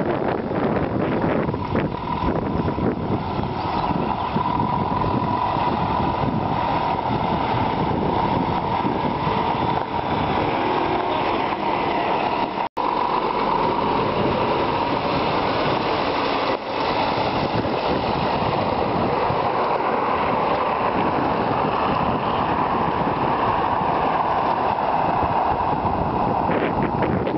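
Scania G490 truck's diesel engine running steadily, with wind buffeting the microphone. The sound drops out for an instant about halfway through.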